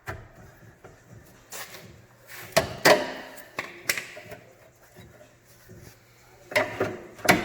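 Hammer blows on a chisel driven against steel, knocking a spot-welded engine mount bracket off a car's frame rail. The strikes are sharp, irregular and slightly ringing: a cluster of about half a dozen through the middle, then a few more near the end.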